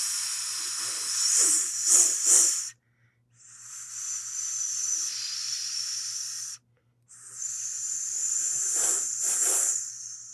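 Snake hissing: three long hisses of about three seconds each, separated by brief silences. The first and last each have two short, sharper puffs of hiss set into them.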